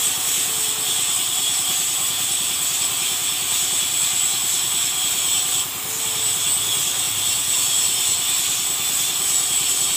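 Compressed-air paint spray gun hissing steadily while laying a light mist coat of candy-violet paint onto a motorcycle alloy wheel, with a brief break a little over halfway through.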